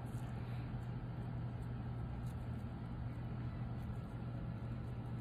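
A steady low hum over a faint even hiss of background noise.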